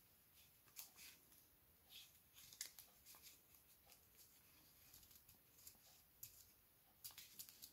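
Faint, irregular short scratches of a pen tracing along the edge of a paper template onto felt.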